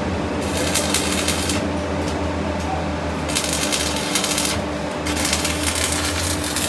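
Electric arc welding on a steel tank wall: the arc crackles and sizzles in three bursts of about a second each, with short pauses between them and a steady low hum underneath.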